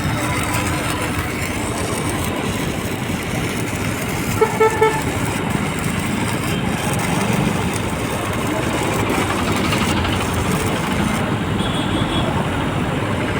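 Steady traffic noise, with a vehicle horn tooting three short times about four and a half seconds in.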